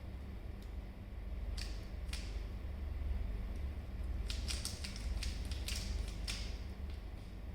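Plastic 3x3 Rubik's cube being turned by hand during a solve: a few separate clicks of its layers snapping round, then a quick run of turns about four seconds in. A low steady hum runs underneath.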